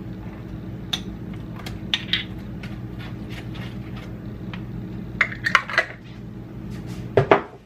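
A metal spoon stirring minced garlic into melted butter on a foam paper plate, with scattered light taps and scrapes and a quick cluster of clicks about five seconds in. A steady low hum runs underneath.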